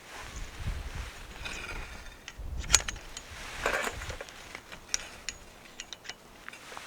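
Scattered clicks, knocks and short rustles of camping gear being handled.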